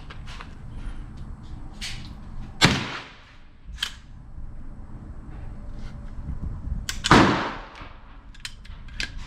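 Two shots from an AR-15 pistol fitted with a .22LR conversion kit, about four and a half seconds apart, each a sharp crack with a short ringing tail, with a few lighter clicks in between and near the end.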